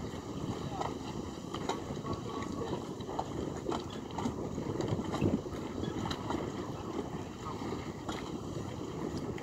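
Harbour ambience: a steady rumble of wind on the microphone, with scattered light knocks and clanks and faint voices from crew working on moored boats.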